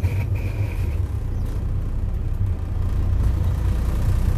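Class A truck's diesel engine running steadily, heard from inside the cab while driving, as a continuous low rumble. A thin high whine sounds briefly in the first second.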